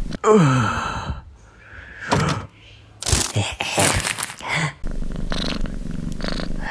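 Cartoon sound effects: a sleeping cat's purr, loudest at the start with a falling pitch. About three seconds in comes a run of crinkling, crackling sounds, as from a bag of chips being handled.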